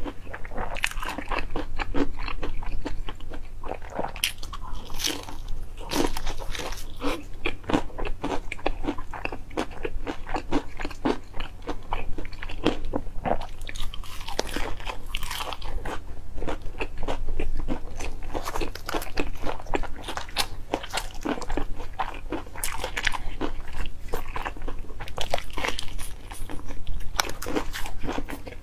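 Crunching and chewing of crispy fried chicken coated in cheese and chili sauce, picked up close by a lapel microphone: dense, irregular crackly bites and chews throughout, over a steady low hum.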